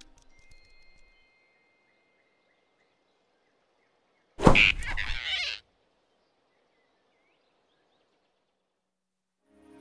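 A cartoon sound effect for a sudden snatch: one sharp rushing swish about halfway through, lasting just over a second, as the big rabbit grabs the flying squirrel. Near silence surrounds it.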